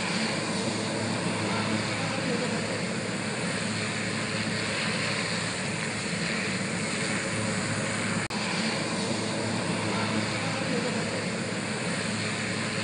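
Aircraft engine noise, a steady drone with a constant low hum and no change in pitch. It cuts out very briefly about two-thirds of the way through.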